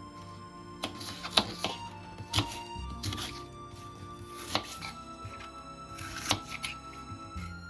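Background music with a steady tone, over which come about eight sharp, irregular clicks and knocks on a hard surface.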